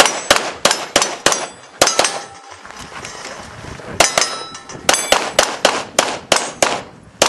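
A rapid string of pistol shots at steel plates, each hit answered by the ringing clang of the steel. There is a pause of about two seconds between two quick strings.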